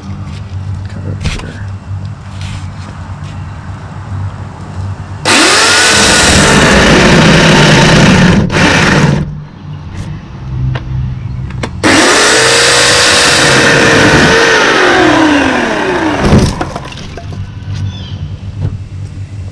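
Green 14-inch Portland corded electric chainsaw run twice, about four seconds each time. The motor's whine climbs as it starts, drops in pitch as the chain cuts into the log, and winds down when the trigger is let go.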